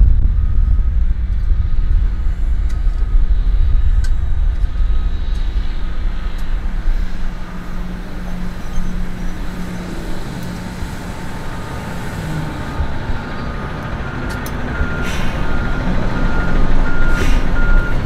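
Construction-site reversing alarm beeping about twice a second, clearest in the last few seconds, over a steady low rumble of heavy vehicle engines and traffic.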